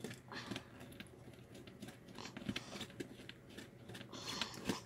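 Faint, scattered small clicks and ticks of hands handling and prying apart the plastic housing of a Chrysler 300 heater control module, with the circuit board inside.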